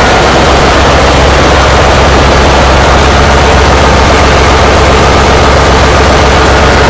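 Loud, steady drone of a ship's engine-room machinery running, a deep constant hum under a hiss that does not change.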